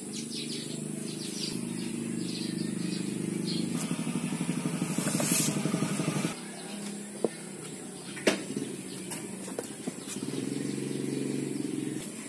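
A motorcycle-type engine running steadily, getting louder over the first few seconds, then cutting off abruptly about six seconds in. A couple of sharp knocks follow, and the engine sound comes back near the end.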